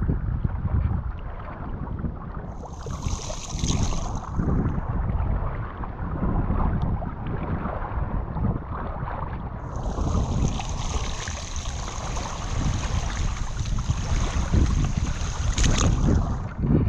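Wind buffeting the microphone over shallow lake water sloshing and splashing around rubber waders as the wearer shifts her feet in the sandy shallows. A high hiss comes in twice, briefly near the start and for several seconds in the second half.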